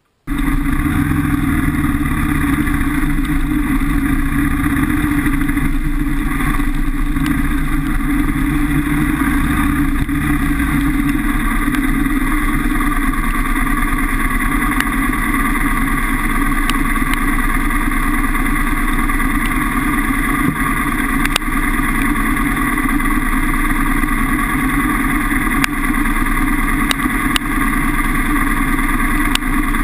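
Kawasaki KLR650's single-cylinder engine running at a steady, low speed, picked up by a camera mounted on the bike. The sound cuts in suddenly just after the start.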